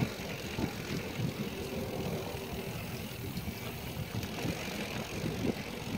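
Riding noise from a mountain bike on a dry, bumpy dirt trail, heard from the rider's own phone: a continuous rumble with irregular rattles and knocks as the tyres roll over the rough ground, and wind rushing across the microphone.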